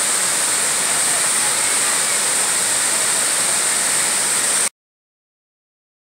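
Waterfall plunging into a pool: a loud, steady rush of falling water that cuts off suddenly about four and a half seconds in.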